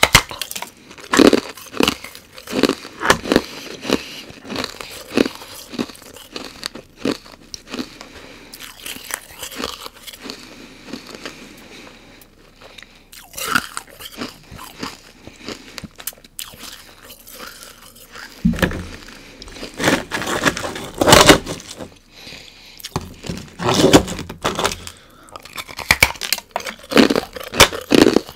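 Close-up crunching and chewing of chunks of white, cloudy carbonated ice, bitten hard in quick runs of sharp, loud crunches. There is a quieter stretch of softer chewing in the middle, and the densest, loudest crunching comes in the last third.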